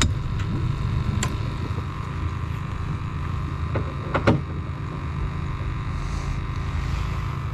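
A boat motor running steadily with a low rumble and a constant hum, with a couple of short knocks, one about a second in and a louder one about four seconds in.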